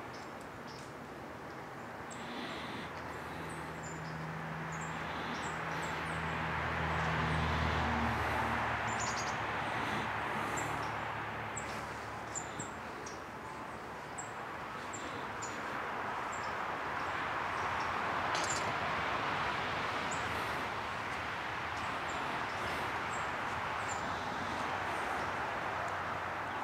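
Outdoor ambience: small birds chirping in short, scattered calls over a steady rushing noise that swells and fades, with a low hum through the first half.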